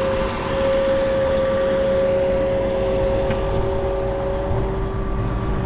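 Tractor engine running steadily, with a steady whine over it; a second, lower tone joins about a second and a half in.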